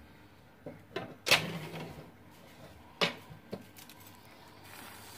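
A few short knocks and clatters of kitchen utensils: several in quick succession with the loudest about a second in, then another about three seconds in.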